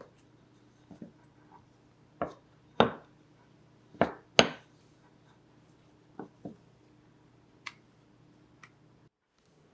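A series of sharp knocks and taps of kitchen utensils or dishes set down and handled on a work surface, four loud ones close together near the middle and lighter taps before and after, over a faint steady hum that cuts off near the end.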